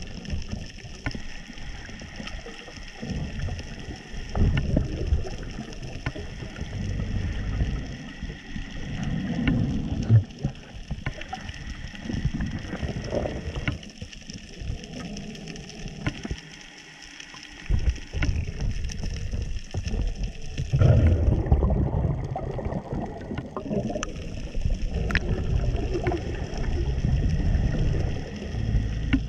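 Underwater ambience: irregular low rumbling surges of moving water, with a few faint clicks.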